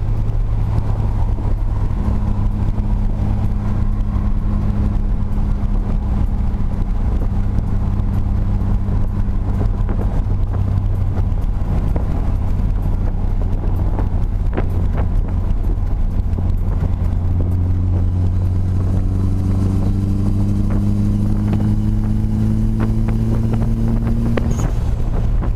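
Turbocharged Nissan SR20DET engine with an S15 Spec-R T28 turbo running under way, a steady low drone whose higher tone climbs slowly in pitch in the last few seconds. The owner wonders whether a noise it makes under boost means the turbo is going out.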